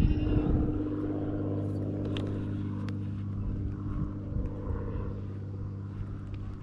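A steady low mechanical hum, engine- or motor-like, holding one pitch throughout, with a couple of light clicks about two and three seconds in.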